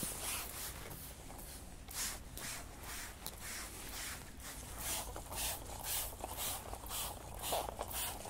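Trigger spray bottle squirting cleaner onto a dirty aircraft engine in quick, repeated hissing squirts, about two a second, denser in the second half, to leave it to soak before washing.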